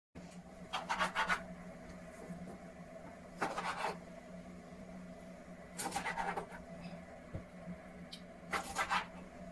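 Kitchen knife scraping at a raw whole chicken on a wooden cutting board: four short rasping strokes, roughly every two and a half seconds, over a steady low hum.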